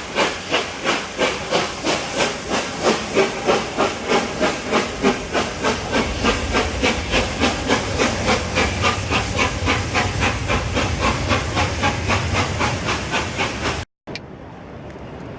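Steam locomotive 60163 Tornado, an A1 Peppercorn Pacific, exhausting in a rapid, even beat of about three to four chuffs a second as it works its train past. The low rumble of the train builds beneath it about halfway through, and the sound cuts off suddenly near the end.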